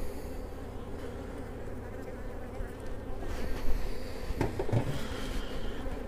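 Honeybees humming steadily over an open hive. About four and a half seconds in, a few short knocks as the wooden hive frames are handled.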